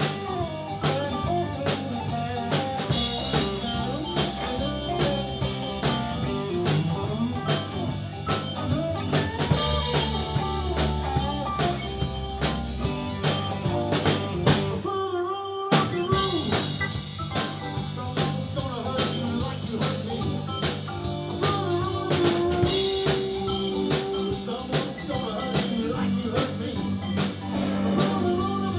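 Live blues band playing: electric guitars, electric bass and drum kit with a steady beat. Everything cuts out for about a second midway, then the band comes back in.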